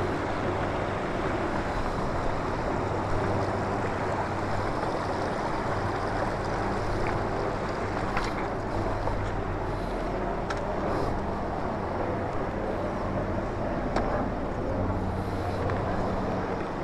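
Steady rush of a shallow river running over rocks, with a low hum that fades in and out.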